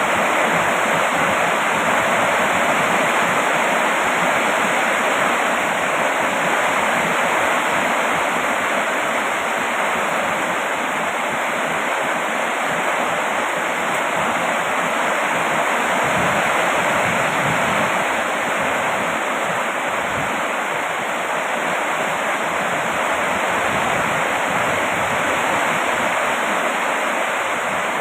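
Heavy rain falling steadily: a dense, even hiss of water without breaks or single drops standing out.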